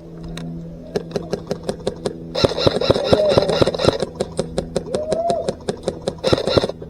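Airsoft gun firing: a few single shots, then rapid strings of shots from about two and a half seconds in, at about seven a second, ending shortly before the end. A steady low hum runs underneath.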